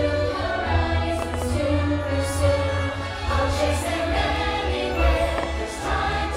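Music with a choir singing, the soundtrack of a theme-park fireworks show.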